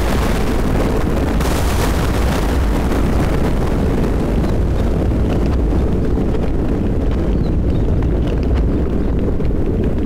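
Thunder in a rainstorm: a crack of thunder fading over the first few seconds into a continuous deep rumble, with scattered raindrop ticks later on.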